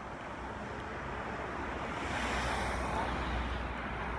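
Outdoor background noise: a low rumble with a hiss that swells about two seconds in and eases off near the end, of the kind made by wind and passing road traffic.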